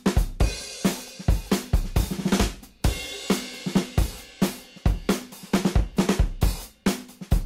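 Background music of a drum kit alone playing a fast, driving beat, with kick drum, snare, hi-hat and cymbal crashes.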